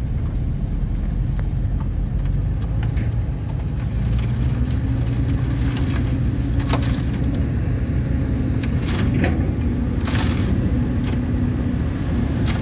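Diesel engines of a bulldozer and a dump truck running together, a steady low rumble whose engine speed steps up about four seconds in, as the truck's bed starts tipping up. A few short knocks come through over the engine noise.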